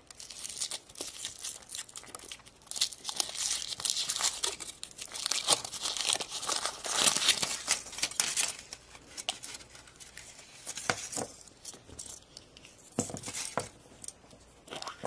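Foil wrapper of a chocolate surprise egg crinkling and tearing as it is peeled off by hand. The crinkling is dense for the first eight or nine seconds, then thins to scattered crackles and clicks.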